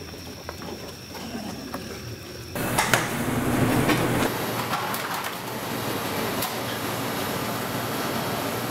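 Busy restaurant kitchen noise that cuts in abruptly about two and a half seconds in: a dense, steady rushing din with a few clacks of pans and utensils. Before it, quieter sounds with scattered faint clicks.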